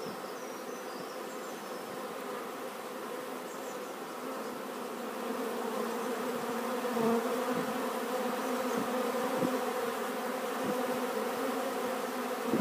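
Many honey bees buzzing in a dense, steady hum that grows louder about halfway through.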